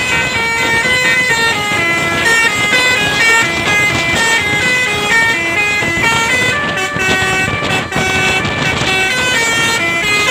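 Telolet bus horn, a set of tuned horns playing a quick melody whose notes step up and down without pause.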